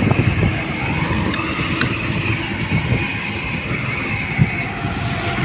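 Steady rolling noise of a bicycle ridden along a concrete road, its tyres humming on the surface and wind on the microphone, with a single small click about two seconds in.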